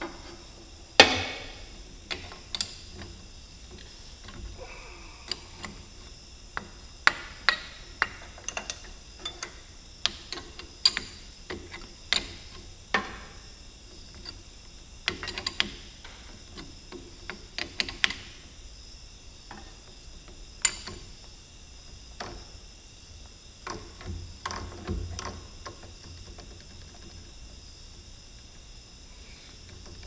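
Scattered metal clicks, taps and knocks of hand work on a Cat D3C dozer's pilot control joystick assembly, irregular, with the sharpest knock about a second in. A faint steady high hum runs behind them.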